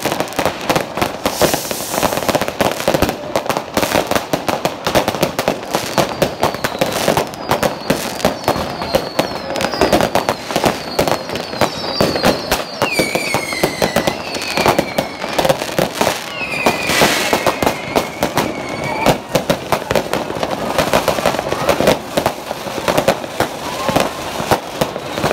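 Many fireworks and firecrackers going off at once in a constant stream of bangs and crackling. Through the middle stretch, several high whistles from whistling rockets glide down in pitch.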